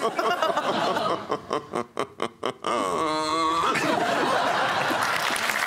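People laughing: a run of short laughing bursts, a brief voiced laugh a little after three seconds, then a steady wash of studio-audience laughter.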